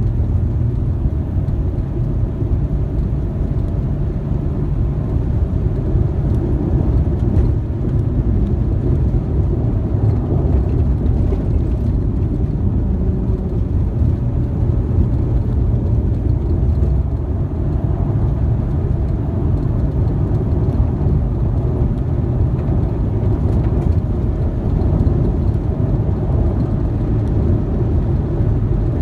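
Ford Mustang driving at a steady speed on a dirt road: a constant low rumble of engine and tyre noise on the dirt surface.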